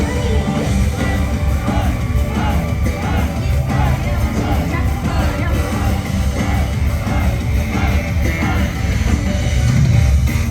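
Live rock band with drums, electric guitar and bass playing an instrumental passage between sung lines, with voices yelling and singing along over it.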